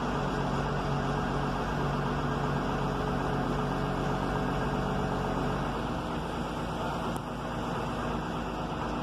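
Caterpillar crawler excavator's diesel engine running steadily under a working load as the boom and bucket move; its note changes about six seconds in.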